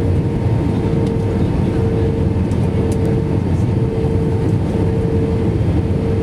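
Airliner cabin noise on final approach: a steady loud rumble of the engines and airflow heard through the cabin, with a hum that swells and fades about once a second.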